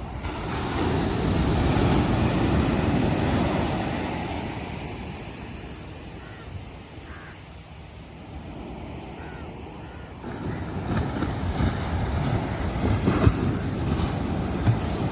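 Ocean surf: a wave breaks and washes in, loudest about two seconds in, then fades through the middle before the next wave breaks about ten seconds in.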